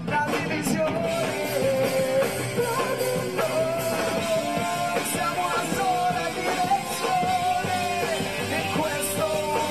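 A live rock band playing, with electric guitars, bass and drums, and a held melodic lead line over the top.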